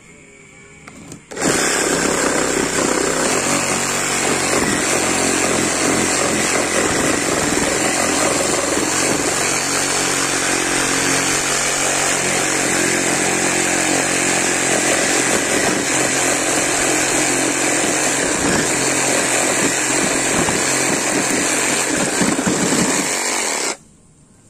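Corded reciprocating saw running continuously while cutting through a piece of used wood; it starts about a second in and cuts off sharply near the end.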